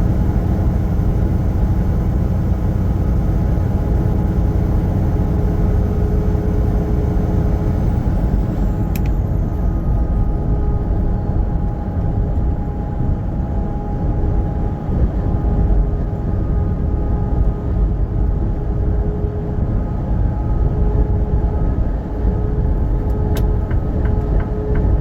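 Steady engine and road rumble of a moving semi truck heard from inside the cab, with a constant drone of several steady tones over it. A sharp click about nine seconds in, and another near the end followed by a short run of faint ticks.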